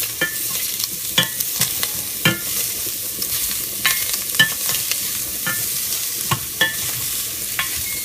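Parboiled beef chunks sizzling as they brown in hot oil in a pan, stirred with a utensil that knocks against the pan about ten times, some knocks ringing briefly.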